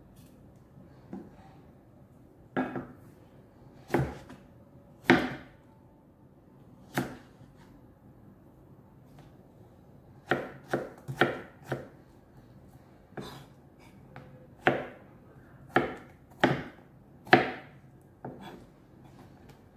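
Kitchen knife slicing a vegetable on a plastic cutting board: single sharp knocks of the blade on the board at irregular intervals, with a quick run of about five near the middle.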